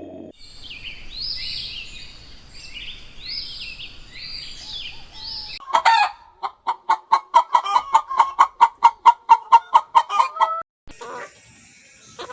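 High, repeated chirping calls, then, about halfway through, a chicken clucking in a fast, even run of about five clucks a second that grows louder and stops abruptly.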